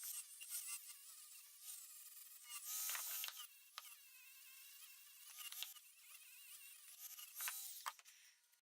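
A small high-speed power tool motor whining and buzzing, its pitch wavering and dipping as it is loaded against the work, with several sharp clicks. It cuts off suddenly near the end.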